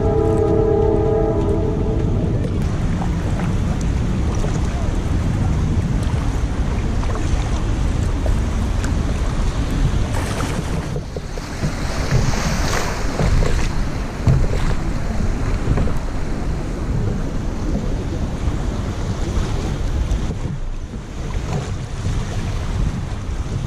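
Wind buffeting the microphone and river water rushing and splashing as a kayak runs through choppy riffles. A held pitched tone sounds for the first two seconds.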